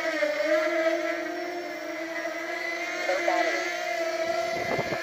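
Brushless motors and propellers of a 250-size racing quadcopter (Sunnysky 2207 2100kv motors) whining steadily in flight, the pitch wavering a little with throttle. A brief low rumble comes near the end.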